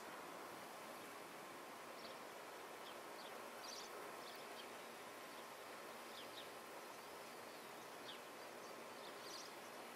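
Faint, steady outdoor background hiss, with occasional short, high chirps scattered through it.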